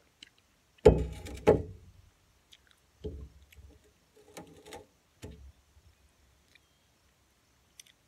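A ceramic mug set down on a glass patio tabletop: two loud knocks about a second in, followed by a few softer clatters and knocks.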